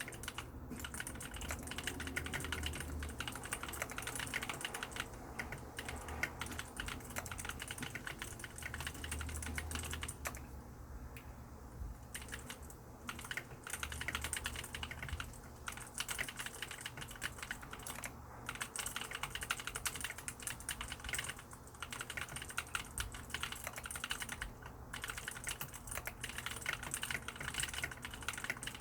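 Mechanical keyboard with lubricated blue (clicky) switches being typed on steadily, a dense stream of key clicks that thins out briefly about eleven seconds in.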